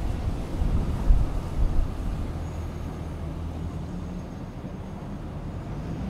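Low, steady rumble of vehicle and traffic noise with a faint hum, and a couple of louder knocks between about one and two seconds in.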